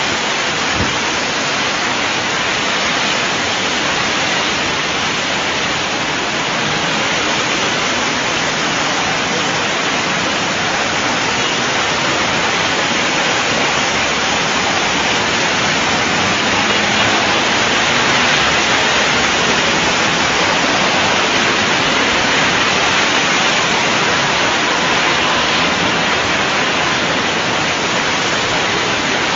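Heavy rain and rushing floodwater making a steady, even hiss.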